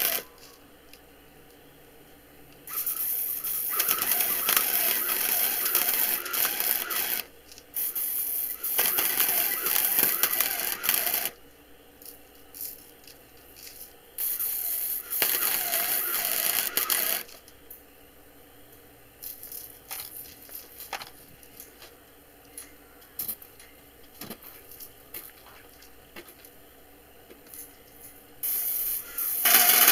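Harbor Freight 90-amp flux-core MIG welder's arc crackling and sizzling as tack welds are laid on steel horse-panel wire. It comes in several bursts of a few seconds each, with quiet gaps and a few small clicks between them. One more burst starts near the end.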